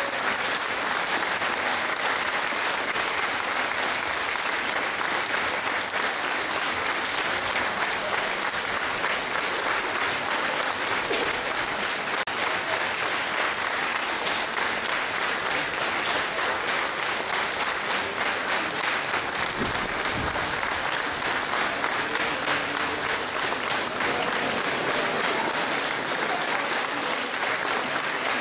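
Audience applauding steadily, a dense, even clapping of many hands.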